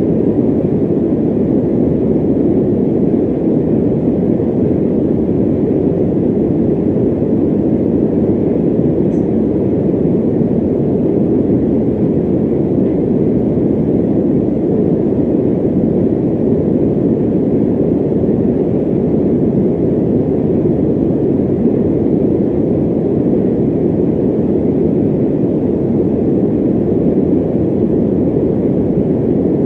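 Electric fan running steadily: an even, deep rushing of air with no changes and no rhythm.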